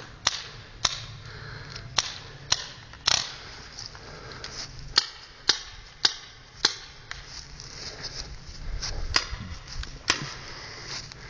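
Paintball markers firing: a dozen or so sharp pops at irregular intervals, some close and loud, others fainter.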